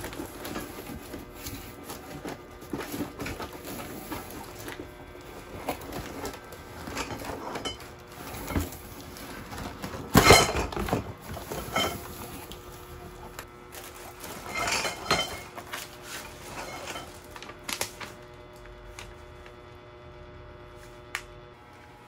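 Parts of a flat-pack white rack, tubular poles and slatted panels, clinking and knocking against each other while they are lifted out of a cardboard box and sorted, with a louder knock about ten seconds in.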